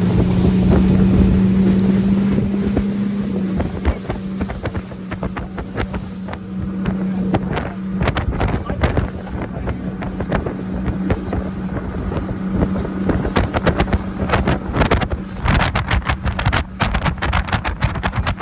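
Motorboat engine running steadily with a low hum, easing off about three and a half seconds in. Wind buffets the microphone, and a growing clatter of short knocks fills the last few seconds.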